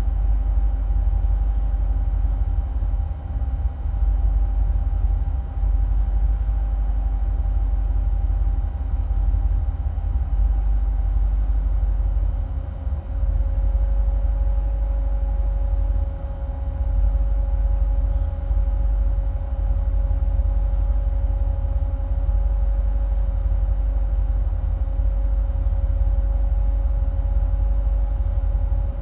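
2008 Corvette C6's LS3 V8, breathing through long-tube headers with no catalytic converters, idling with an uneven, wavering rumble that dips now and then. This is the rough idle the owner can't tell is normal or a fault. A faint steady whine joins about halfway through.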